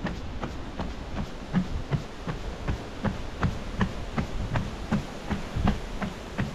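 A runner's footsteps on a boardwalk, in a steady quick rhythm of nearly three footfalls a second.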